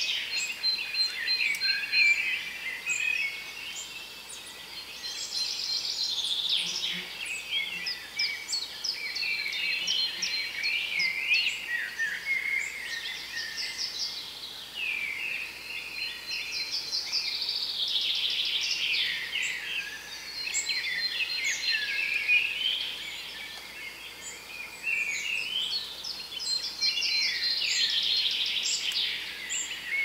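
Several songbirds singing at once, their songs overlapping in waves of phrases a few seconds long, with a quick run of repeated high notes coming back every so often.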